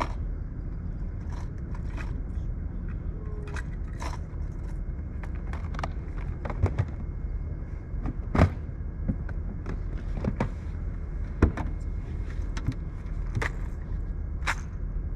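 A steady low rumble with scattered sharp clicks and knocks of gear on a fishing boat; the loudest knocks come about eight and a half and eleven and a half seconds in.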